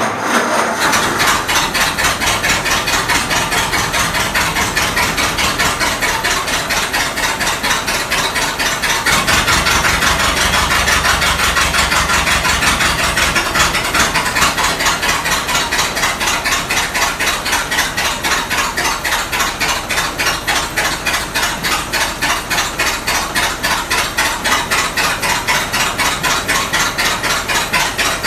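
The freshly rebuilt four-cylinder flathead engine of a 1924 Ford Model T, just caught on its first start and running steadily with an even beat of firing pulses. It runs a little louder and deeper for a few seconds around the ten-second mark.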